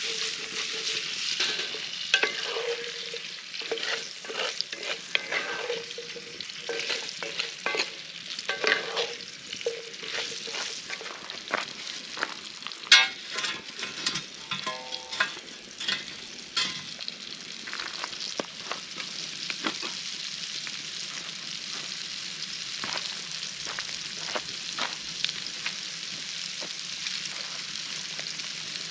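Food sizzling in a pan over a campfire, with a utensil scraping and clicking against the pan through roughly the first half; after that the sizzle runs on steadily with only an occasional click.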